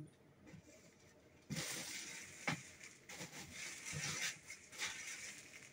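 Plastic bags and clothes rustling as someone rummages through plastic storage bins, starting about a second and a half in, with a few light knocks against the bins.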